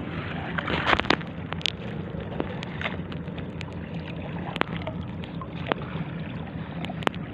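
Steady wind rumble on the microphone over sea water, with scattered short splashes and knocks, a few sharp ones about a second in and near the end.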